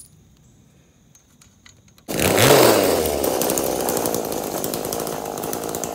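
Homelite 42cc two-stroke chainsaw engine driving a homemade scooter, running loud and rough. It comes in abruptly about two seconds in after faint clicks, revs up and drops back, then runs steadily.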